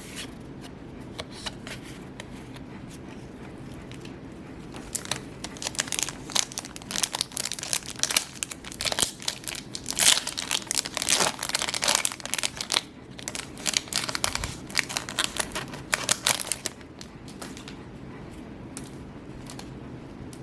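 Foil booster-pack wrapper crinkling and tearing as a trading-card pack is opened: a dense run of crackles starting about five seconds in and stopping a few seconds before the end, over a steady low hum.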